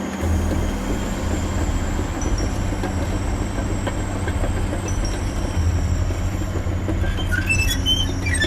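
Heavy machinery running with a deep, steady rumble and a rattling, clanking texture, with a few high metallic squeals near the end.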